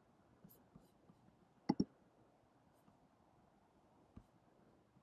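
A computer mouse button clicked once, heard as a quick pair of sharp ticks (press and release) a little under two seconds in, over quiet room tone with a few fainter ticks.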